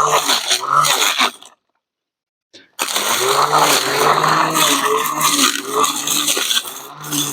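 Battery-powered brush cutter running and cutting through grass and brush, its motor hum wavering in pitch as the load changes, with a scraping, rattling clatter from the cutting head. The sound drops out completely for about a second just after the start, then comes back.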